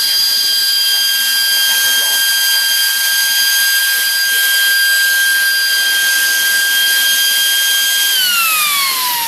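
Delta PFR0812XHE brushless DC fan running at full speed, a steady high whine over rushing air. About eight seconds in the whine falls steadily in pitch as the fan slows down.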